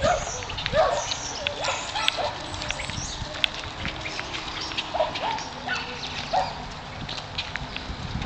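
Dogs giving short yelps and whines now and then, over scuffling and clicking sounds.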